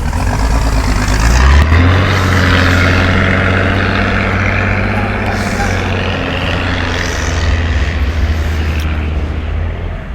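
A bus's diesel engine running with a loud, steady low drone. It comes in strongly about a second and a half in and drops away just before the end.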